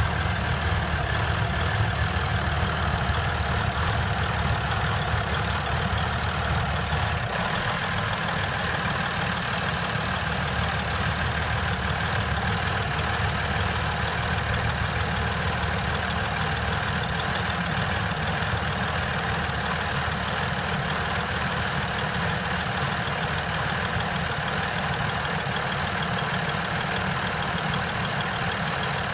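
2015 Ram 1500 EcoDiesel's 3.0-litre V6 turbodiesel idling, with the lowest hum shifting about seven seconds in. This is the rough, sputtering idle the owner is trying to trace: it sets no fault codes and smooths out with throttle or at full operating temperature.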